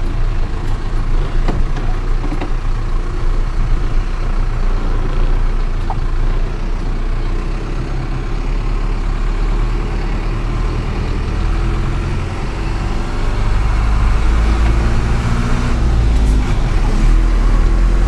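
Mercedes-Benz truck's diesel engine running at low speed, heard from inside the cab as the truck pulls slowly across a wooden plank bridge. The low rumble grows louder over the last few seconds.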